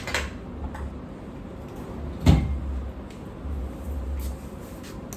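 A single loud thump about two seconds in, like a cupboard or door shutting, with a few light clicks and handling noises around it.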